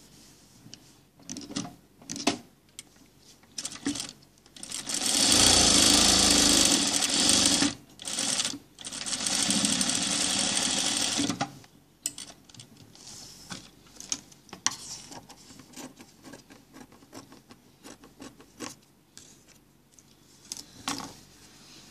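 Industrial sewing machine stitching in two runs of about three seconds each, with a short pause between, sewing closed the side of a flap welt pocket. Fabric handling and small clicks come before and after the runs.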